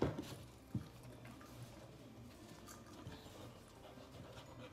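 Two thumps under a second apart as a dog steps off spiky rubber balance pods onto a rug and knocks them over, then light movement on the rug.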